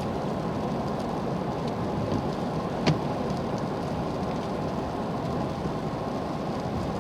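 Steady road and engine noise inside a moving truck's cabin, with a single sharp click about three seconds in.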